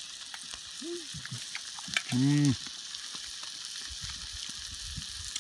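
Frying pan on a portable butane camp stove sizzling steadily with fine crackles, with a short murmur from a man's voice about two seconds in.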